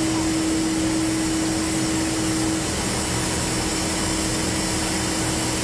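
Non-contact BGA solder-cleaning machine running over the circuit board pads, a steady rushing noise with a steady hum that softens a little about halfway.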